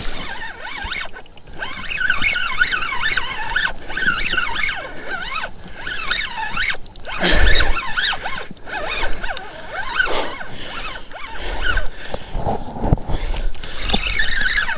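Drag of a Shimano Stella spinning reel whining in uneven spurts, rising and falling in pitch, as a hooked fish pulls braid off the spool. There is a dull knock about halfway through.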